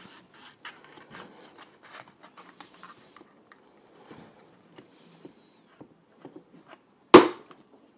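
Faint handling clicks and rubbing of the revolver cylinder, then one sharp knock about seven seconds in: a plastic-faced mallet striking the face of a stainless Charter Arms Bulldog cylinder to drive it back onto the crane. It takes only a light blow.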